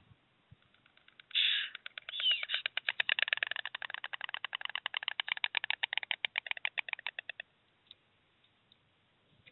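Two white storks bill-clattering: a rapid, even train of wooden-sounding clacks lasting about six seconds, then stopping suddenly. This is the greeting clatter that mates give at the nest when one of them arrives.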